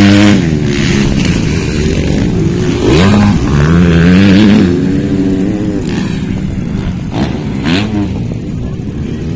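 Dirt bike engines revving in repeated throttle bursts, the pitch climbing and dropping several times as the bikes accelerate and ease off.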